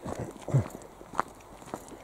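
Footsteps crunching on a gravelly dirt path, about two steps a second, with a short low sound about half a second in.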